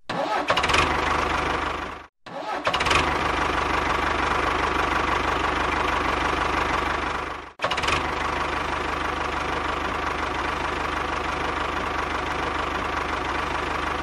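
Tractor engine running steadily with a low knocking chug, in three stretches split by two brief cut-offs, about two seconds in and about seven and a half seconds in; each stretch opens with a short louder burst.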